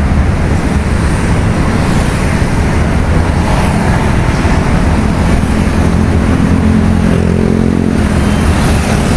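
Steady road traffic noise from a busy toll road, a dense low rumble of passing cars and trucks, with one vehicle's engine hum standing out about seven seconds in.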